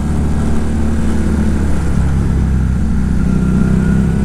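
Fekon Victorino 250i's air-cooled V-twin engine running steadily under the rider at a constant pitch while cruising.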